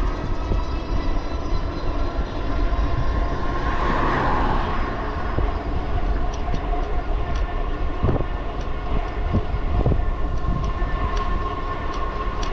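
Wind rushing over the microphone and tyre noise from an electric bike riding on a paved road, speeding up to about 18 mph, with a steady whine from its electric motor. A few short clicks come in the second half.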